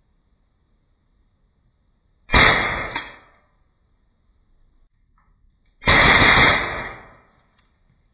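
KWC Beretta M92 (92A1) CO2 blowback airsoft pistol firing: a single shot a little over two seconds in, then a short full-auto burst just before six seconds, whose rapid shots run together for about half a second.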